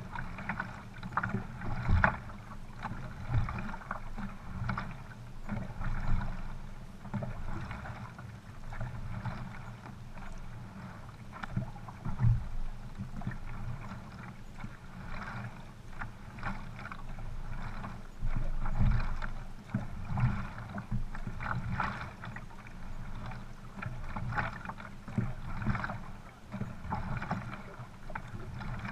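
Water splashing and lapping against the hull of a narrow racing boat as it moves along, coming in uneven surges.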